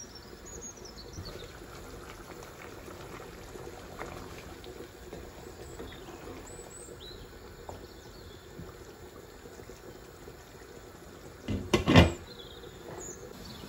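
Bottle gourd curry simmering in a pot on a gas hob, stirred with a spoon, with a steady wet bubbling and stirring. Near the end come two sharp knocks of a utensil against the pot.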